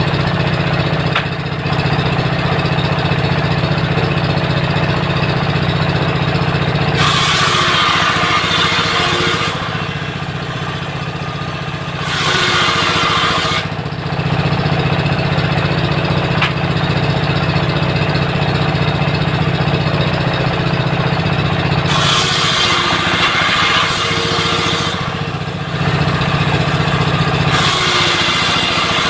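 A homemade table saw powered by a 16 HP diesel engine runs steadily, the engine's low hum continuing throughout. Four times the spinning circular blade rips through wood, each time a loud hissing rasp lasting a couple of seconds.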